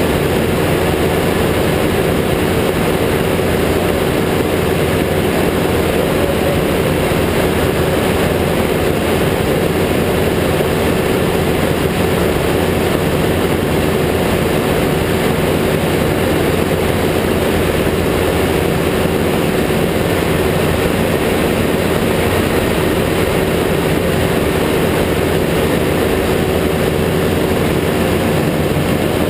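Ultralight trike's pusher engine and propeller running steadily in flight, at an even pitch and level throughout.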